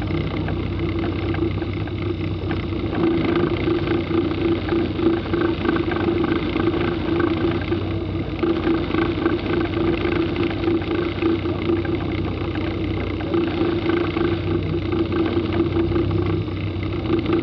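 Kit car's engine running at low revs as the car creeps along at walking pace, a steady unbroken engine note.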